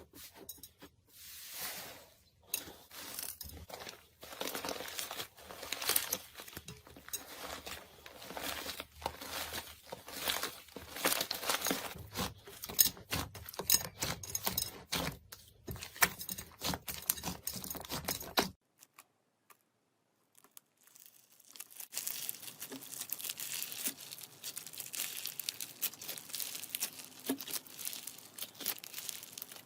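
Slime worked by hand, making dense crackling and crinkly popping. It breaks off about two-thirds of the way through for a brief silence, then resumes as a quieter stretch of crackling.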